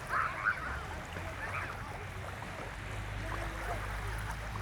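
Sea surf washing on a beach, a steady hiss with a low rumble that swells in the second half. Brief distant voices about half a second in.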